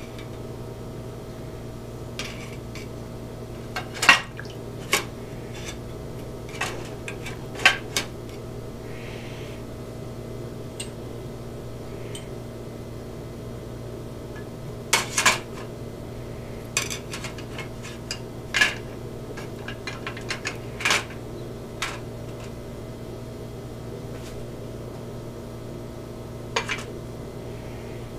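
Metal carburetor parts clinking against the inside of a metal can of carburetor-cleaner dip as they are set into it: about a dozen scattered sharp clinks over a steady low hum.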